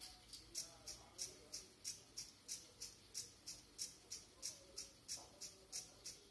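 Faint, steady mechanical ticking, about three ticks a second, alternating stronger and weaker.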